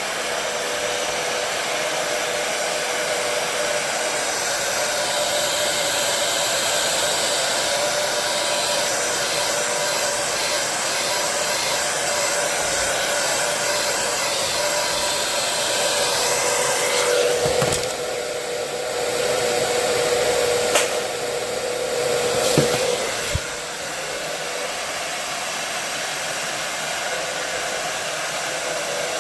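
Jose Eber hair dryer blowing steadily while drying wet hair. It has a steady hum under the airflow. Its sound shifts about two-thirds of the way through, with a few sharp clicks.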